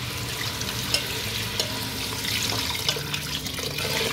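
A steady stream of water poured into a pressure cooker of browned chicken masala, splashing over the chicken and the ladle. The pouring stops abruptly at the end.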